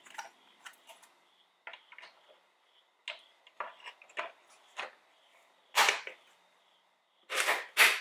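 Plastic side-mirror cover being fitted and pressed onto the mirror housing by hand: a string of light clicks and knocks, then loud snaps about six seconds in and twice near the end as the cover is pushed home.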